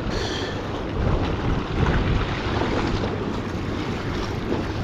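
Wind buffeting the microphone, a steady low rush and rumble, with a brief high-pitched sound at the very start.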